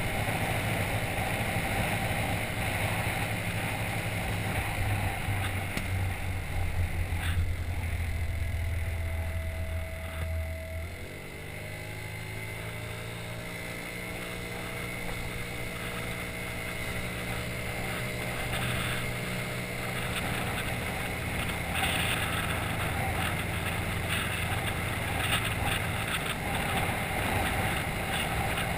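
Scooter's small engine running while riding, with wind rushing over the bike-mounted microphone. About eleven seconds in, the wind rumble drops and the engine note comes through clearly, rising a little as the scooter picks up speed again.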